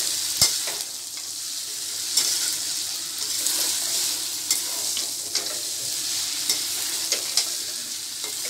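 Chowmein noodles and vegetables sizzling in hot oil in a kadhai as they are stir-fried, with a steady frying hiss and a metal spatula clicking and scraping against the pan now and then, one sharp knock about half a second in.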